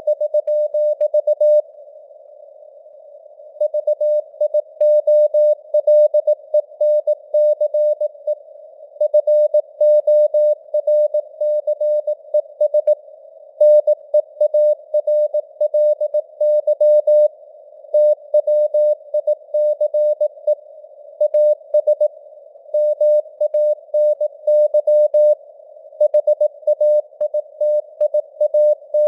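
Morse code sent at 18 words per minute as a single steady tone keyed on and off in dots and dashes, with short pauses between words. A narrow band of simulated radio hiss sits around the tone, and the signal strength varies with simulated fading (QSB).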